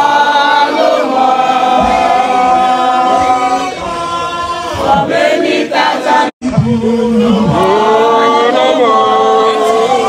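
A group of voices singing together without instruments, in long held notes, with a brief break about six seconds in.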